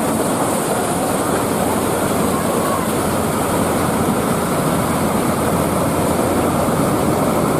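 Homemade toy combine harvester model running steadily while cutting crop, its small motors and mechanism giving a loud, even mechanical noise.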